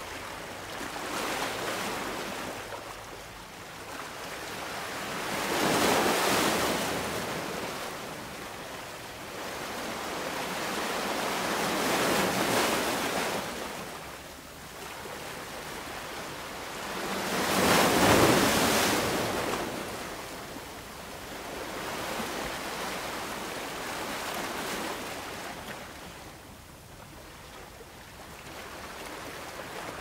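Ocean waves breaking and washing up a beach: about five swells of surf rising and falling roughly every six seconds, the loudest a little past the middle.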